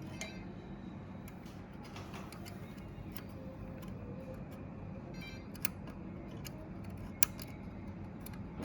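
Scattered light clicks and ticks of small parts being handled and fitted on an RC truck's gear-shift linkage, the sharpest near the end, over a steady low hum.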